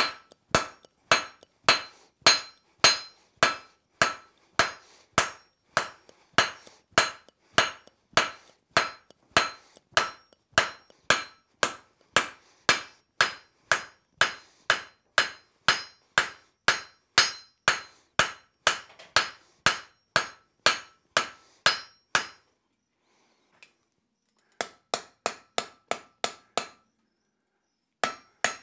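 Large rounding hammer striking red-hot steel bar on an anvil, steady ringing blows at about two a second, drawing out and flaring the piece thin. The hammering stops for a moment about three quarters of the way through, then a short quicker run of blows follows.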